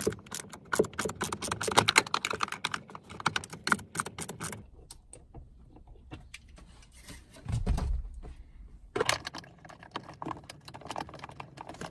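Ratchet wrench clicking in quick runs as a 13 mm bolt is backed out, in two bursts with a pause and a dull thump in between.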